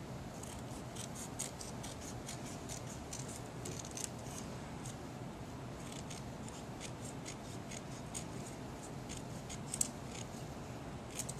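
Scissors snipping thin strips of paper: a run of quick, light snips, coming thick at first and more spaced out in the second half.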